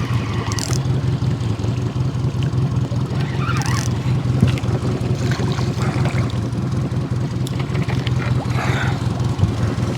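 Small 9.9 hp outboard motor idling steadily, with a few faint knocks and rustles on top.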